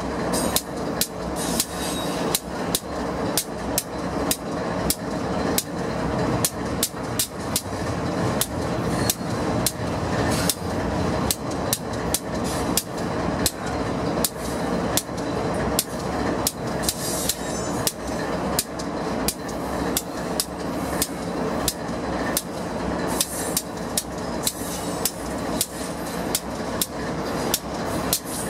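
Steel wheels of a passing double-stack intermodal freight train clicking over the track in a steady, even rhythm of sharp clicks, about two to three a second, over a continuous rumble and steady hum.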